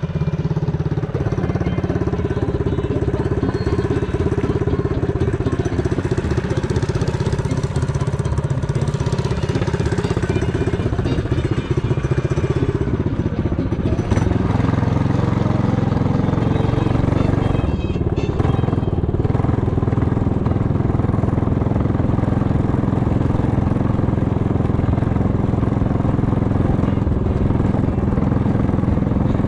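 The small single-cylinder engine of a TrailMaster Hurricane 200 mini bike running steadily. About halfway in it takes on a fuller, lower sound and carries on evenly.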